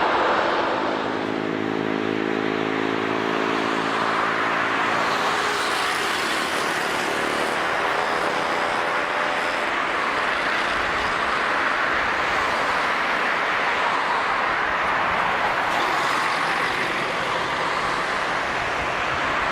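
Airliner jet engines giving a steady roar. A low droning hum sits under the roar for the first half and fades out about ten seconds in.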